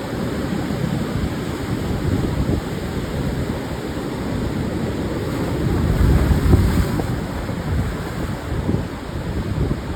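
Pacific surf breaking and washing on a sandy beach, with wind buffeting the microphone as a low rumble. The surf swells louder about six to seven seconds in.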